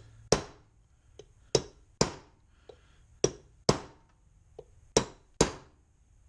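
Ball-peen hammer striking a steel punch to drive a bearing out of an NP231 transfer case's slip yoke eliminator housing: seven sharp metallic blows, mostly in pairs, each ringing briefly.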